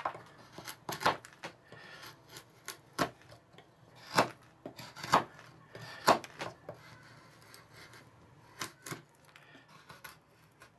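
An M390 steel knife blade shaving chips off a dry pine stick across the grain, about a dozen short, sharp strokes, roughly one a second, as the edge bites and each chip comes away.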